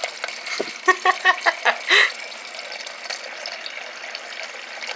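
Refrigerator water dispenser running a steady stream of water into a container to flush air out of the line after a filter change. About a second in comes a quick run of six short pitched spurts, the loudest part.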